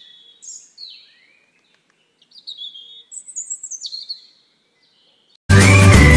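Birds chirping: a string of short, high, downward-sliding calls, loudest around three to four seconds in. Music cuts in suddenly and loudly about five and a half seconds in.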